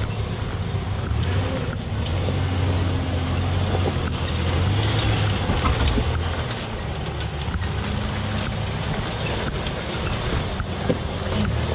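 1994 Ford Explorer's 4.0-litre V6 running at low speed with a steady low drone as the truck crawls down a rocky dirt trail, with a few small knocks along the way.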